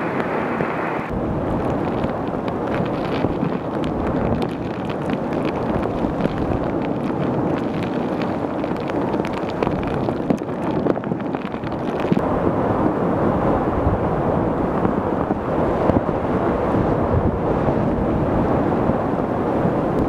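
Hurricane-force wind and storm-surge waves crashing, with gusts buffeting the microphone into a loud, continuous roar. The sound changes abruptly twice, about a second in and about halfway through.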